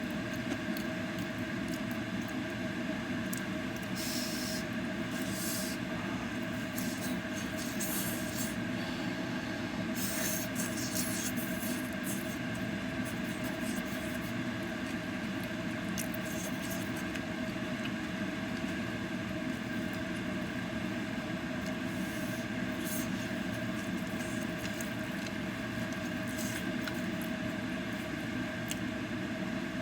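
Kitchen exhaust fan running steadily, a constant hum with hiss, with a few brief louder hisses.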